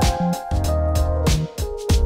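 Background electronic music with a steady beat and bass line.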